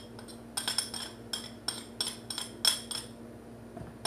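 Metal spoon tapping and scraping against a ceramic plate, about a dozen quick clinks with a bright ring, knocking garlic paste off the plate into a mixing bowl. The clinks stop about three seconds in.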